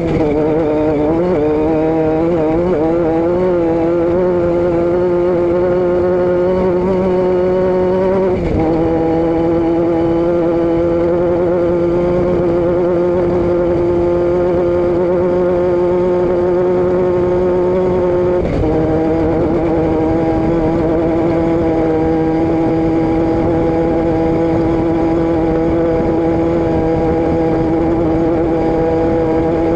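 A vehicle engine running steadily under way, with a drone that wavers in pitch over the first few seconds, then drops suddenly about eight and a half seconds in and drops again slightly about eighteen seconds in.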